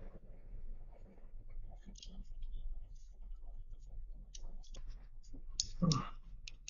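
Small clicks and handling noises of a carbon-fibre drone frame and a 3D-printed plastic part being fitted together by hand, with a louder knock about six seconds in. A faint low hum runs underneath.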